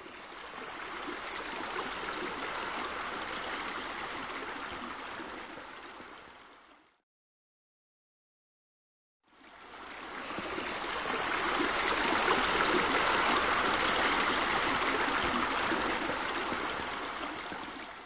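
Water pouring steadily from a pool waterfall. It fades in and out, goes silent for about two seconds, then fades back in louder.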